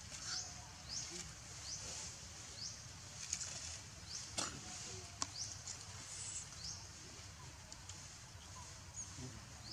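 A steady series of short, high, rising chirps from a small animal, about one and a half a second, over a low background hum. A few sharp clicks cut in about halfway through.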